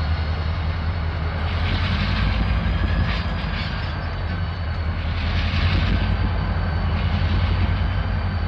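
Two Norfolk Southern diesel locomotives rumble steadily as they move slowly through the yard pulling covered hopper cars. Wheel and rail noise rises and falls over the engines' sound.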